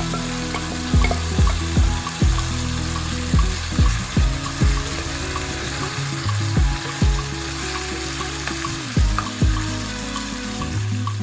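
Food sizzling steadily as it fries in a pan.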